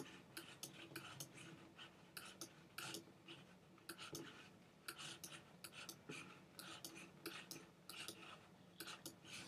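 Faint clicking of a computer's pointer button as straight lines are drawn, about two irregular clicks a second, over a faint low hum.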